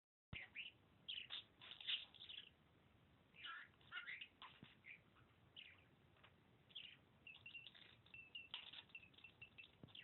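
Young male budgerigar chattering: quiet runs of short chirps and warbles in irregular clusters, with brief pauses between.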